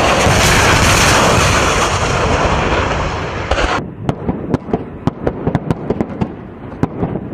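A loud, steady roar that cuts off abruptly nearly four seconds in. It gives way to military weapons firing: a rapid, irregular string of sharp shots, about three to four a second.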